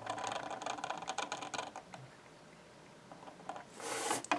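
Steel G-pen dip nib scratching across drawing paper as an ink line is drawn, a dense run of fine scratches lasting about two seconds. Near the end comes a brief rustle as the sheet of paper is shifted on the desk.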